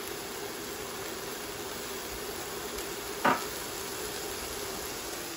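Thin pork chops sizzling steadily in a hot, oiled cast iron skillet, with a faint steady hum underneath. A single short click sounds about three seconds in.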